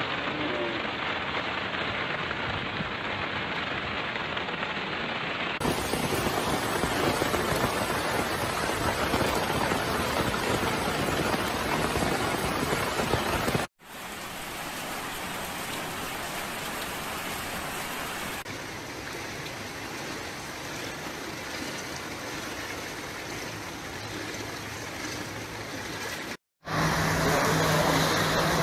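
Steady rushing noise of rain and flowing floodwater, broken by two short dropouts about 14 and 26 seconds in. Between the dropouts, where a muddy flood torrent rushes past, the noise is quieter.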